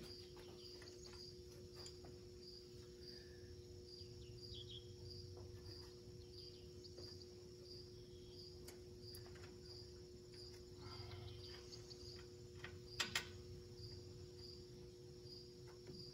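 Faint cricket chirping, an even chirp about twice a second, over a steady low hum. A few light metallic ticks come through, with one sharp click about 13 seconds in.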